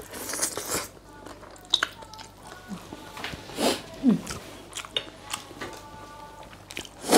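Close mouth sounds of eating blue swimming crab: slurping and sucking meat from a crab leg, with wet chewing and smacking in short bursts.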